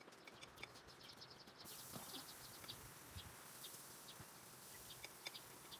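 Faint birdsong: short, high chirps repeated in quick runs.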